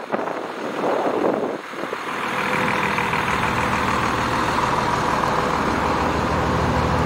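Diesel engine of a large tour coach idling steadily, its even hum settling in about two seconds in.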